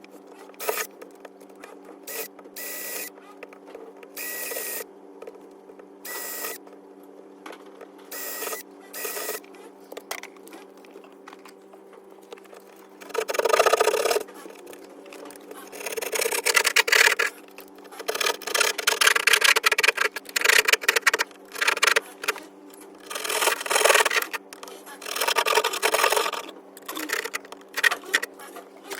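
Cutting an outlet hole into a wall, heard as short scraping strokes at first, then from about the middle as longer, louder bursts of cutting noise of a second or two each, repeated several times, over a steady low hum.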